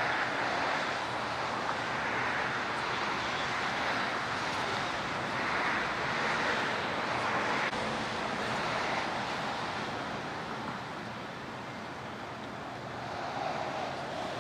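Road noise from passing traffic: a steady hiss of tyres and engines that swells and fades as vehicles go by.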